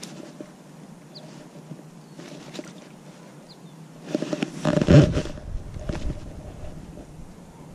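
Handling noise from a baitcasting rod and reel during a jerkbait retrieve: small clicks, with rustling and scraping loudest about four to five seconds in. A few faint, short bird chirps.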